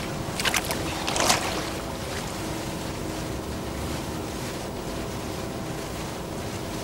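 Water lapping against a canoe, with two short splashes in the first second and a half, over a steady hiss.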